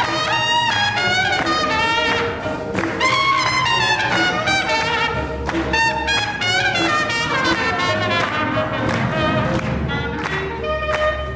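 Live small swing band playing jazz, a trumpet carrying the lead line with notes that bend and fall, over upright bass and drums keeping a steady beat.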